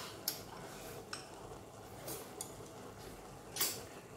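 Chopsticks clicking against small porcelain bowls and an aluminium pot as two people eat: a few scattered sharp clinks, with a louder clatter about three and a half seconds in.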